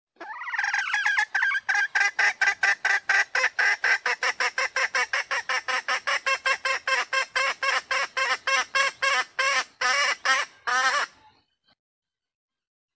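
Female red junglefowl (Gallus gallus) calling: a long, regular run of short clucks, about four a second, that stops about eleven seconds in. The uploader takes it for a hen calling to a male.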